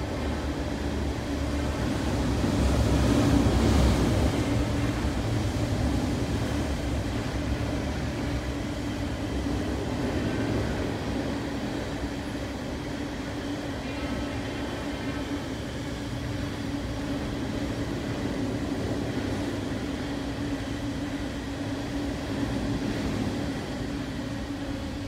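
Sand train of covered hopper cars rolling past: steady steel-wheel rumble and clatter on the rails, swelling louder about three to four seconds in.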